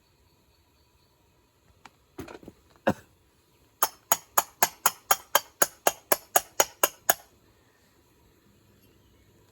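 A couple of knocks, then a quick, even run of about fourteen sharp clicks, about four a second, lasting some three seconds.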